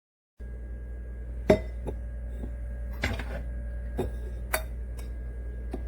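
Several sharp clinks and knocks of dishes and glass being handled, a few about a second apart, over a steady low hum.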